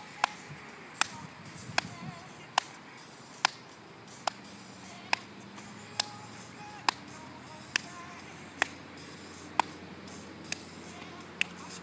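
Hands clapping to a steady beat, about one clap a second and fourteen claps in all, over faint pop music.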